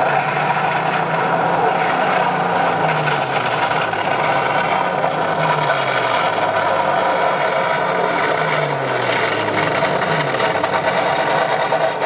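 Ship engine and machinery sound effect played through the model HMS Warspite's onboard sound system: a steady mechanical running sound with a low tone that drops in pitch about four times.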